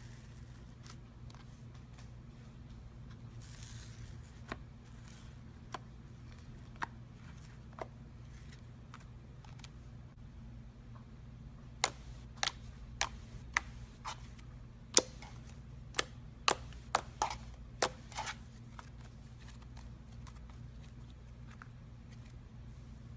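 Slime being handled, giving a few soft clicks at first and then a quick run of sharp, loud clicks and pops from about twelve to eighteen seconds in, over a steady low hum.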